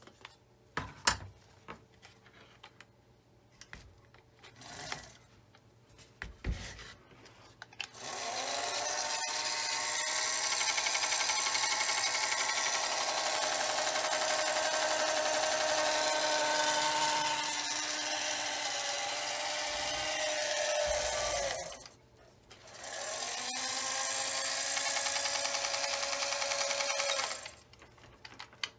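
Small electric motor running a mechanism, rising in pitch as it gets up to speed, running about fourteen seconds, stopping, then running again for about five seconds; this is most likely the Singer Featherweight 221's own motor driving the machine with its bottom cover off. A few knocks and clicks of parts being handled come before it.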